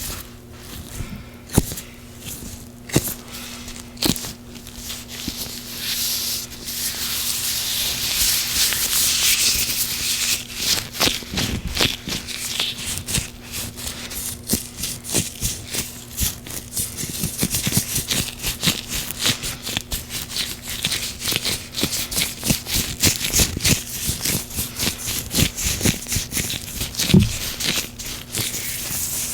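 Gloved hands slick with oil rubbing together: a few separate sticky clicks at first, then from about six seconds a steady hissing rub thick with rapid wet crackles.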